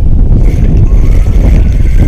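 Wind buffeting the microphone with a heavy, loud rumble. A faint, steady high whine joins about half a second in.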